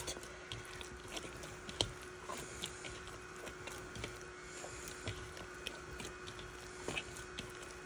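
Bread dough being kneaded by hand in a bowl: faint soft squishing, with scattered light ticks and taps, over a faint steady hum.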